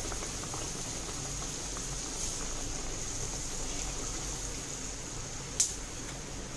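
Hot oil sizzling steadily in a frying pan, with one sharp click about five and a half seconds in.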